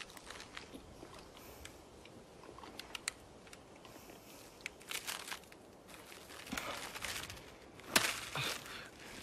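Plastic snack wrapper of a Twinkie crinkling as it is handled, in several crackly bursts, loudest about eight seconds in, after a few faint scattered clicks.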